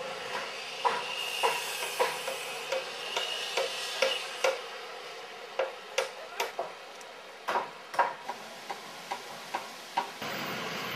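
Hammers driving nails into wood framing: irregular sharp blows, roughly one or two a second, each with a short ring, over a steady background hiss.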